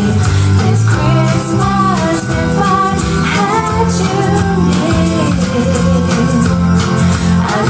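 A song with singing over a steady bass line and beat, played back through Sony SS-TS57 two-way bass-reflex tower speakers.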